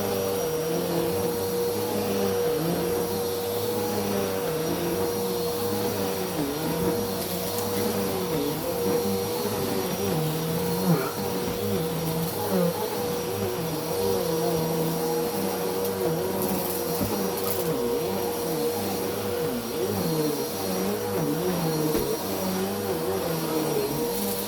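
Bissell vacuum cleaner running steadily on carpet: a continuous motor drone with a held whine and a lower hum that wavers up and down.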